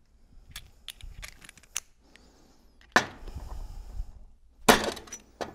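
Screwdriver clicking and knocking against a metal pump seal plate while pushing the old mechanical seal's stationary face out of its bore from the back side. There are a few light clicks, then two loud sharp knocks about three seconds in and near the end, each with a brief ring.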